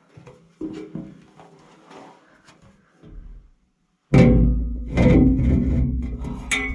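Background music, quiet and sparse at first; after a brief gap about four seconds in, a loud full-band guitar track starts abruptly.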